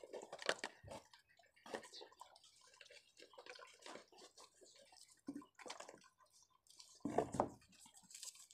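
Small paper slip being handled and unfolded: faint, irregular crinkling and rustling, with a brief louder low sound about seven seconds in.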